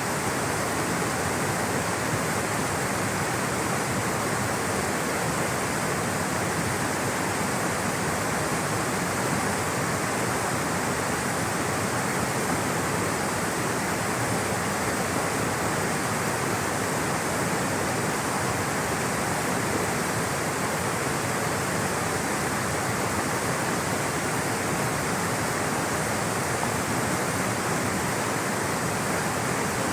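Rushing water flowing steadily, an even roar with no breaks or changes.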